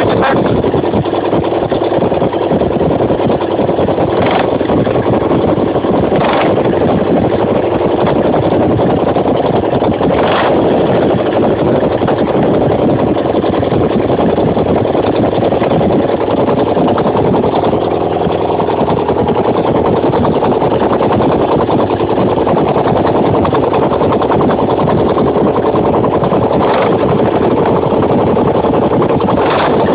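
Ural motorcycle's flat-twin engine running steadily, freshly overhauled and started for the first time after the rebuild. A few brief sharper accents stand out over the steady running.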